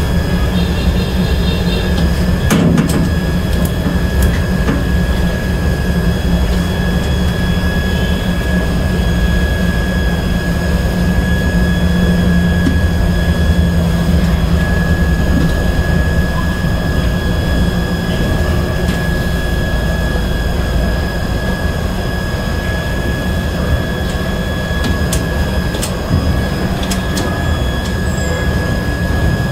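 Steady machinery drone with a constant high-pitched whine running over it, from equipment around an elevator control cabinet, with a few sharp clicks about two seconds in and again near the end.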